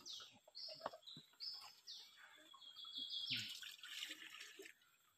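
A bird calling over and over in short, high notes about twice a second, with a quick climbing run of notes near the middle. About three and a half seconds in, water is poured from a coconut-shell ladle into a jar, a soft splashing for about a second.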